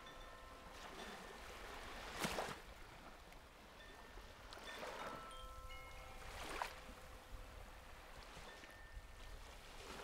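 Koshi chime bells tinkling in scattered clear notes of several pitches over small sea waves washing onto a sandy beach, with a wave surging in about two seconds in and again near the end.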